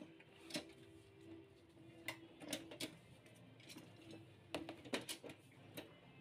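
Irregular light clicks and knocks of an INGCO socket set's metal carry case being handled, turned over and set down, with a few sharper taps clustered about two to three seconds in and again near five seconds, over a faint steady hum.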